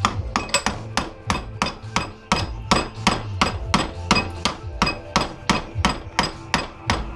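Rapid hand-hammer blows on a small AC-adapter transformer, about four strikes a second, each a sharp metallic knock with a slight ring, as the transformer is knocked apart for its copper.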